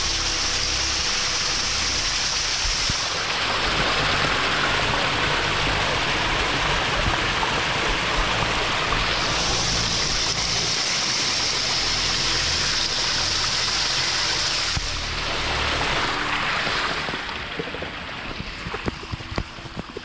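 A small creek pouring and splashing over rocks beneath an overhanging shelf of snow and ice, heard close up as a steady rush of running water. The rush drops quieter a few seconds before the end.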